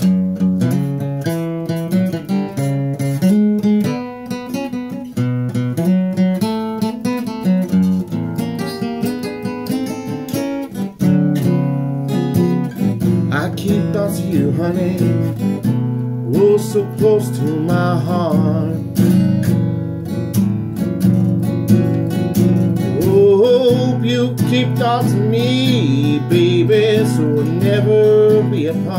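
Acoustic guitar playing blues, picked note runs over strummed chords. From about halfway, a wordless sung line with a wavering pitch comes in over the guitar.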